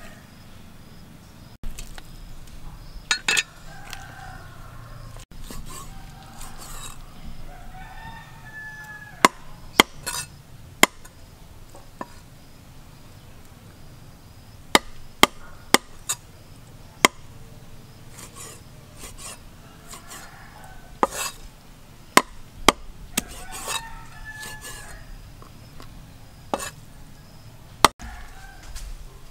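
Steel cleaver chopping squid on a wooden chopping board: a dozen or more sharp knocks at irregular intervals, with short calls that bend in pitch in the background.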